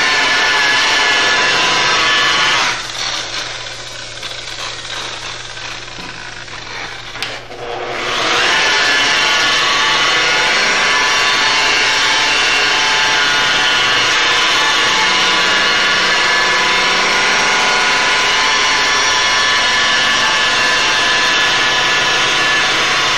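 Rotary car polisher running with a foam pad on the paint, a steady motor whine. About three seconds in the sound drops and runs quieter for about five seconds, then climbs back to full level and runs steadily again.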